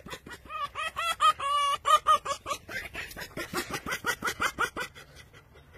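Red fox chattering while being petted: a rapid run of short, high cackling calls, several a second, fading out near the end.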